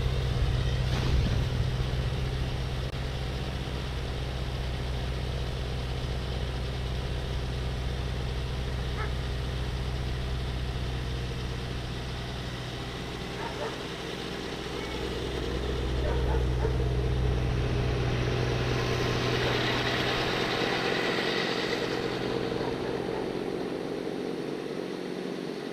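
Snowblower engine running steadily, growing louder about two-thirds of the way through and fading toward the end.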